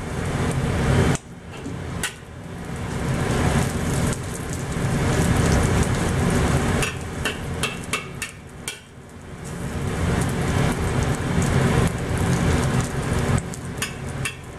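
Zucchini pancake batter sizzling in hot oil in a wok while a spatula presses and shapes it, with clusters of sharp clicking and scraping taps of the spatula against the wok, mostly around the middle and near the end.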